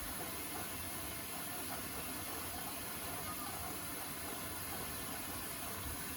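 Beko WTK104121A washing machine taking in water for a rinse: a steady hiss of cold water running into the drum.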